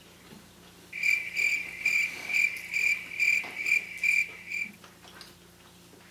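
A high, steady chirping trill that pulses about twice a second. It starts suddenly about a second in and cuts off abruptly nearly four seconds later.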